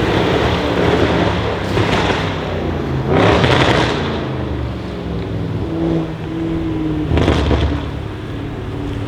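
Audi RS6 C7's twin-turbo V8, decatted and fitted with a Milltek exhaust, running low in the revs with short louder bursts, the biggest about three seconds in and another after about seven seconds.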